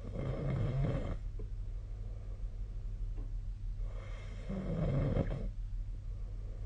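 A sleeping person snoring: two snores about four seconds apart, each lasting about a second, over a steady low hum.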